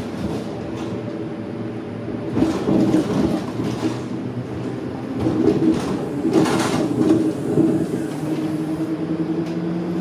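Inside a moving electric tram: a steady electric hum under the rumble of wheels on rail, growing louder about two and a half seconds in and again around six to seven seconds.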